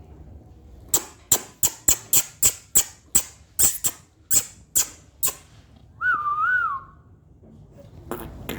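A quick run of about a dozen sharp clicks, about three a second, then a short whistle that wavers up and down.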